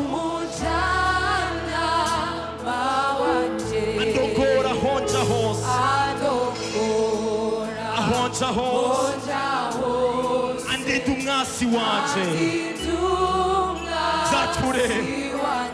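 Live gospel worship song: a male lead vocalist sings with a backing choir over a band, with long held bass notes that change every couple of seconds.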